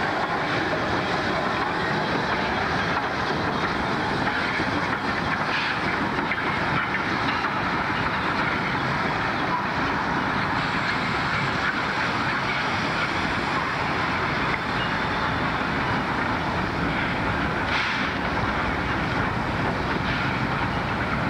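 South Maitland Railways 10 class steam tank locomotive hauling a train of coal hopper wagons, with a steady noise of wagons and running gear rolling along the track.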